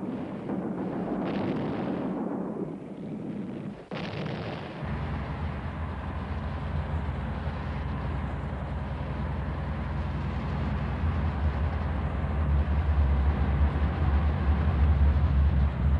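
Battle sound effects: artillery fire and explosions rumbling for the first four seconds, ending in an abrupt cut. Then a low, steady engine drone takes over and grows louder towards the end.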